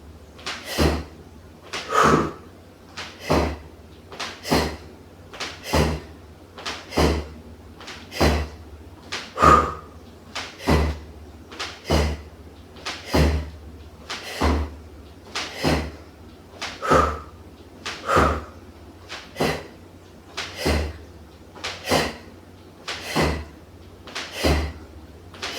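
Feet landing on the floor in repeated jump squats: a steady series of dull thuds, about one every 1.2 seconds.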